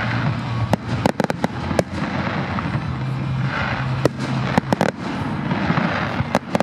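Firework display: about a dozen sharp bangs and pops from bursting shells, bunched in clusters, over a continuous rumble of the show.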